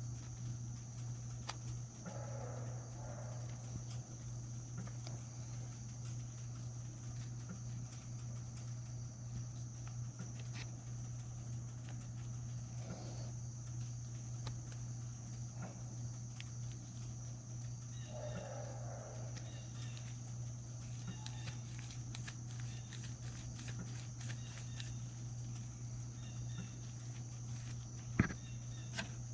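Scattered light clicks and taps of small fishing-reel parts being handled, one sharper click near the end, over a steady low hum.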